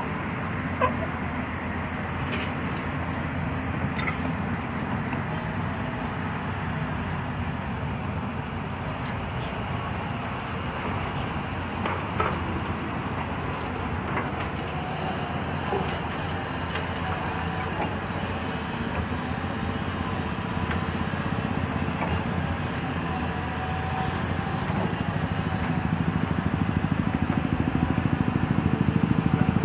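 Heavy earthmoving machinery's diesel engine running steadily, growing louder over the last several seconds, with a few faint knocks.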